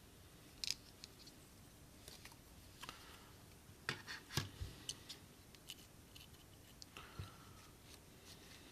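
Faint scattered clicks and light scrapes of small parts and tools being handled on a bench while a disassembled smartphone is reconnected for a screen test, with a short cluster of sharper clicks about four seconds in.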